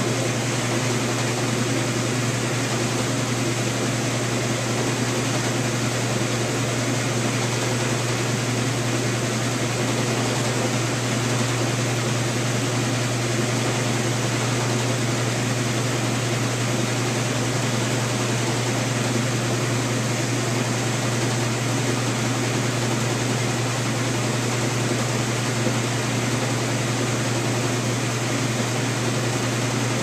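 Whirlpool Heavy Duty Super Capacity top-loading washing machine running with its lid closed: a steady low motor hum under an even wash of noise, without change.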